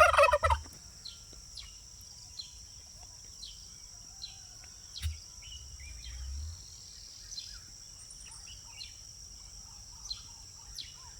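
Outdoor ambience of a steady high insect drone with birds chirping in short, repeated calls, and a single soft thump about five seconds in.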